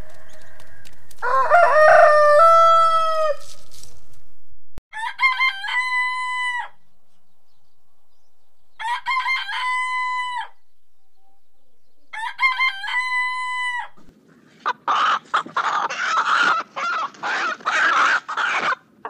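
Rooster crowing: one long crow about a second in, then three identical shorter crows about three and a half seconds apart. Rapid, irregular clucking and squawking fills the last five seconds.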